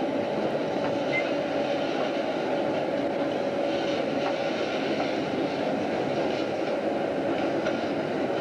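Steady running noise of a Rock Island diesel-hauled freight train with trailer-on-flatcar cars rolling slowly past, with a constant hum underneath.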